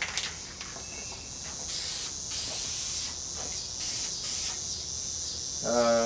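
Aerosol spray paint can spraying in four short hissing bursts, starting about two seconds in.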